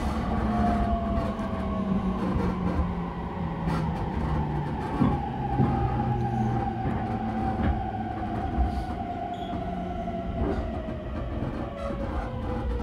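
Running sound of a JR East E231 series 1000 subseries (renewed) commuter train, heard from inside: a steady rumble of wheels on track with the traction motor whine slowly falling in pitch as the train slows.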